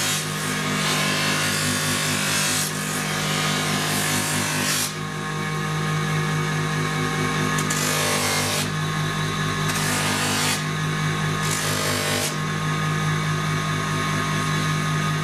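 Bench buffing motor running steadily while a wooden cricket bat is pressed against its spinning cloth buffing wheel, giving stretches of rubbing hiss that come and go as the bat is moved across and lifted off the wheel.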